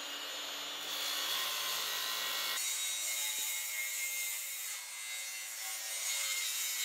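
Makita 18V cordless circular saw running steadily as it rips a thin strip off a quarter-inch plywood jig base, trimming the base so its edge lines up with the blade. The lower part of the sound drops away about two and a half seconds into the cut.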